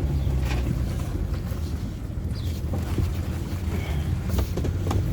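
Vehicle engine running at low speed while the vehicle is manoeuvred, a steady low hum with a few faint knocks.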